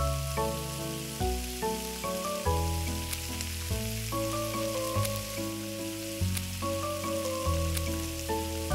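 Oil sizzling steadily as bread fries on a miniature iron griddle, under louder background music: a melody of short, changing notes over a bass line.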